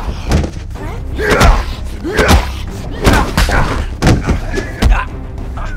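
Mixed martial arts fight sounds: heavy thuds of blows landing, each with a short strained grunt, several times about a second apart, over a steady low rumble.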